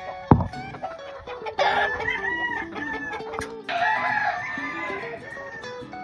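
A rooster crows twice, the first starting about a second and a half in and the second near four seconds, over background music. A single dull thump, the loudest sound, comes just after the start.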